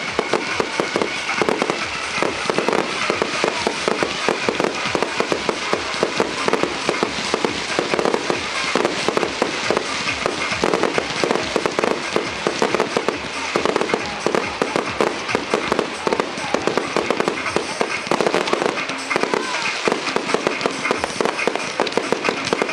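Professional display fireworks going off in rapid, unbroken succession: a dense stream of sharp bangs and crackles, many each second, with no pause.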